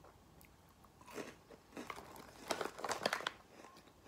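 A person chewing crunchy ube-filled cracker pillows: a run of irregular crunches from about a second in until a little past the middle.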